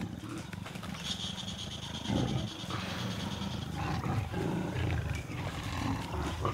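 Leopard growling: a run of low, rough growls during courtship, as a female in season presses a young male to mate.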